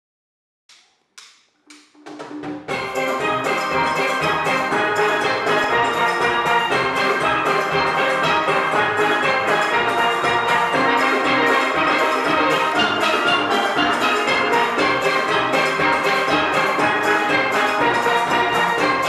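Steel band of steelpans with a drum kit playing a dancehall medley. It comes in about two seconds in, after a few short clicks, with a busy pan melody and chords over a steady drum beat.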